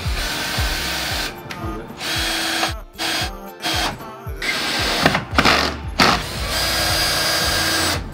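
Ryobi cordless drill running in several runs of a second or more, driving screws through wall boards, with the longest run near the end. Background music plays underneath.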